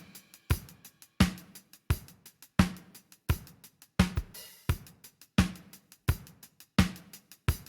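Drum kit playing a steady beat, with a strong hit about every 0.7 seconds and hi-hat strokes in between.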